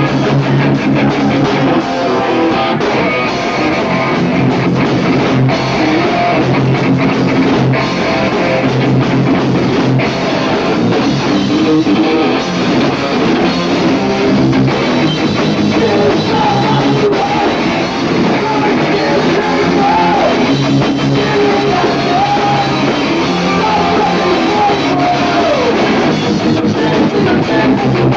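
Punk rock band playing live: electric guitars, bass and drum kit with sung vocals, heard through a camcorder's built-in microphone.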